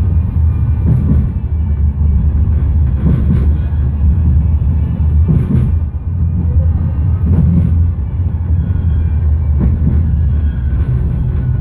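Manchester Metrolink M5000 tram running along the line, heard from inside the car: a steady low rumble with a knock about every two seconds and a faint steady high whine.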